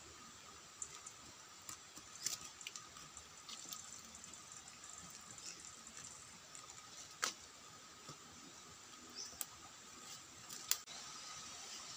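Faint handling noise: a few scattered sharp clicks and light rustles, the sharpest about seven seconds in and again near the end, over a steady faint high hiss.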